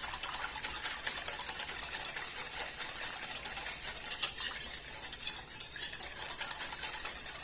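A utensil stirring quickly in a saucepan of cold milk mixture, with rapid clicking and scraping against the pan.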